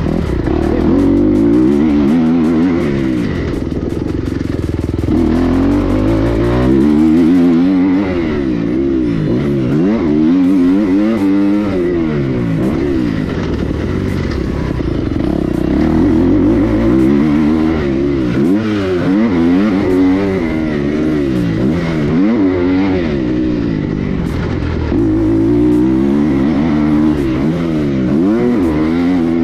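Motocross dirt bike engine being ridden hard, revving up and falling back over and over, its pitch rising and dropping every second or two.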